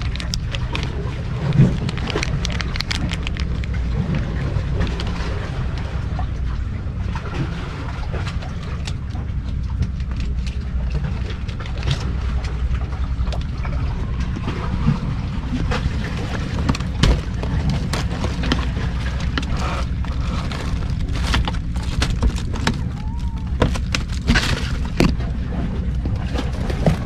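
Steady low rumble, with scattered light knocks and scrapes as the camera brushes against sticks and plastic.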